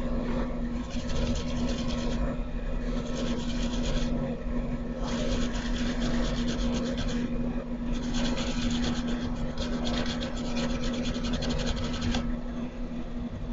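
A brush scrubbing a laptop motherboard wet with cleaning liquid: rapid scratchy strokes in about four stretches of a couple of seconds each, stopping about a second before the end. A steady low hum runs underneath.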